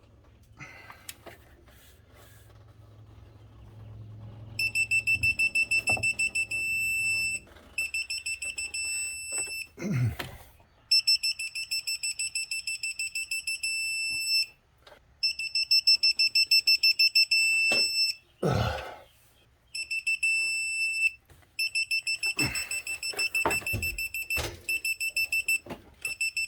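Electronic torque-angle wrench beeping rapidly in runs of a few seconds while it pulls bolts through the 90-degree angle step, its signal that the target is reached. Two dull thuds come in between, near the middle.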